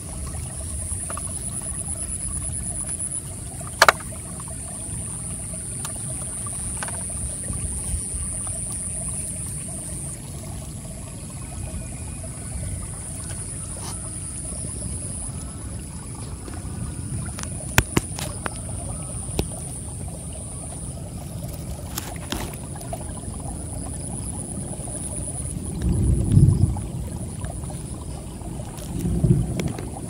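Shallow stream trickling over rocks, with a steady high trill of crickets running over it. A few sharp clicks come through, and two louder low rumbles near the end.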